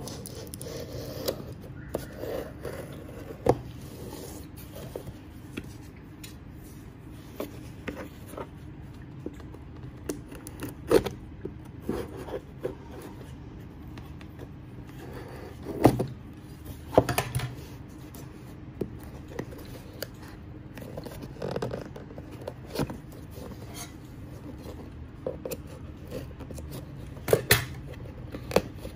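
Scissors snipping and sliding through a plastic courier mailer, with plastic and paper rustling as the parcel is handled, and scattered sharp clicks and knocks throughout.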